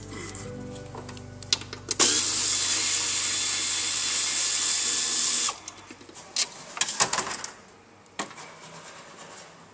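A power ratchet runs in one steady, loud, hissing burst of about three and a half seconds, then stops abruptly. Several sharp clicks and knocks of the tool against metal follow.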